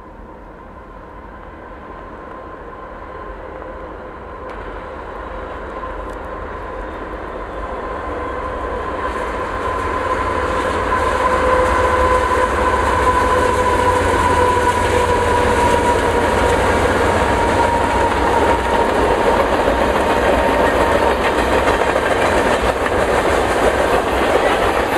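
A diesel freight train, the Canadian Pacific Holiday Train, approaching and growing steadily louder over about ten seconds. Its locomotive then passes and lit boxcars roll by with a steady rumble and the clickety-clack of wheels. A steady tone, slowly sinking in pitch, runs under it as the locomotive goes by.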